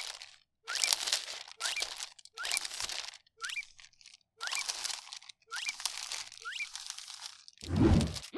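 Plastic packaging crinkling and crunching as it is handled, in short bursts about once a second. A louder, deeper thud comes near the end.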